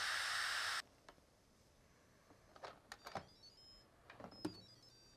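Instant Pot pressure cooker venting steam through its release valve in a steady hiss that cuts off suddenly just under a second in, as the last of the pressure is spent. Then come a few plastic clicks from the lid being twisted to unlock, and two short runs of stepped electronic beeps from the cooker.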